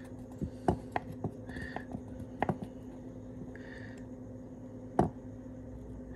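Small plastic clicks and taps as a cable plug is worked into the tiny connector port on the bare circuit board of an Xhorse wired universal remote, with one sharper click about five seconds in.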